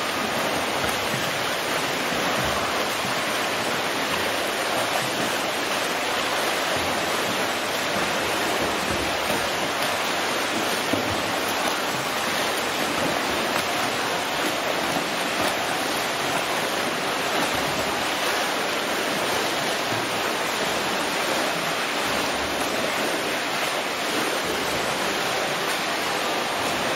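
Swimmers' front crawl arm strokes and kicks splashing through pool water, a steady continuous wash of noise.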